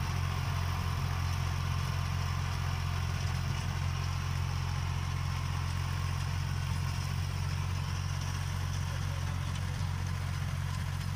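Farm tractor engine running steadily under load as it pulls a rotary tiller through the soil, a constant low drone with the tiller churning underneath.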